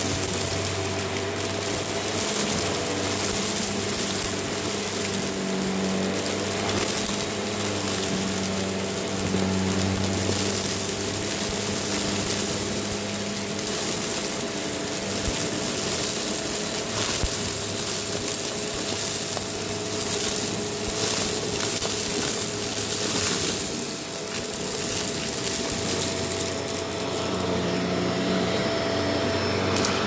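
Shark Rotator Powered Lift-Away upright vacuum running steadily on carpet: an even motor hum with a constant whine.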